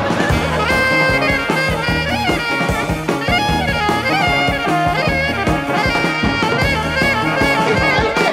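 Lively music with held and sliding melody notes over a steady drum beat.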